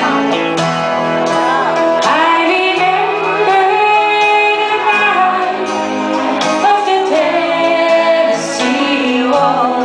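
Live country-rock band playing, with a woman singing lead into an amplified microphone.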